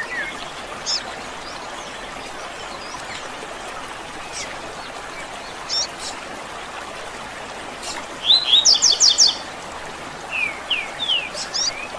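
Wild birds singing and chirping: scattered short chirps and whistled slurs, with a loud quick run of repeated notes about two-thirds of the way through, followed by a few sliding whistles. Under them runs a steady, even hiss.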